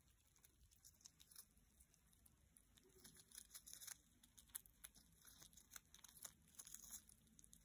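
Red squirrel nibbling and tearing a rose petal held in its forepaws: faint, irregular crisp clicks and crinkling, busiest in the middle of the stretch.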